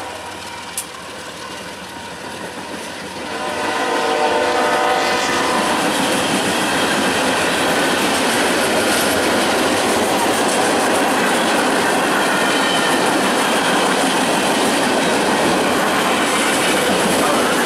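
Freight train passing close by: a locomotive horn sounds briefly a few seconds in, then covered hoppers and tank cars roll past with steady wheel rumble and clickety-clack over the rail joints.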